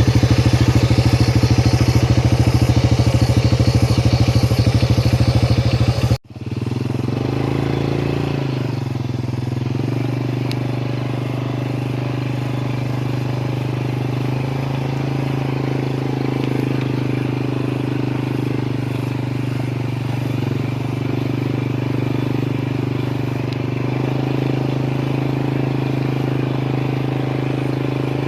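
Motorcycle engine running steadily under way. About six seconds in the sound cuts off for an instant, then carries on steady and a little quieter.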